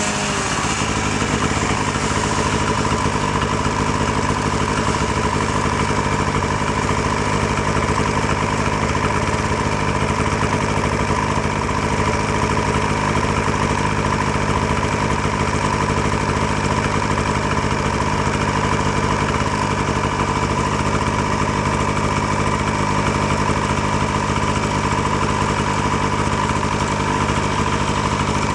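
Snowmobile engine running steadily at an unchanging pitch and level.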